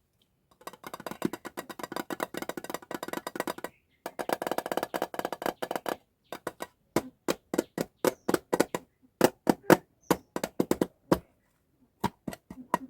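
Taps and clicks on glossy packaging. Two runs of rapid clicking last about three seconds and two seconds, followed by slower, separate taps.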